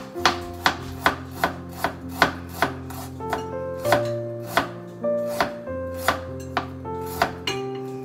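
Chef's knife chopping onion on a plastic cutting board: sharp, even taps about two and a half a second, over background music with long held notes.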